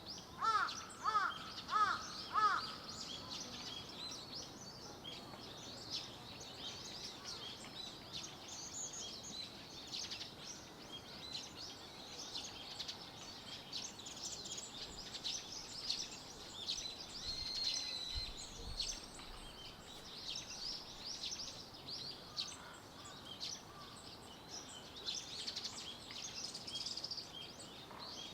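A crow cawing four times in quick succession at the start, over continuous high chirping and twittering from many small birds.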